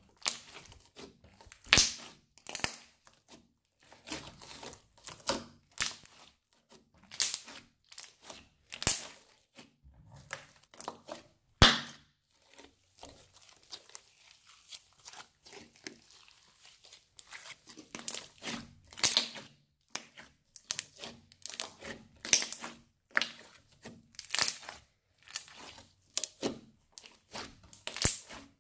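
Green glue slime mixed with sequins and small beads being kneaded, squeezed and stretched by hand: a dense, irregular run of sticky crackles and pops. One sharp pop near the middle stands out.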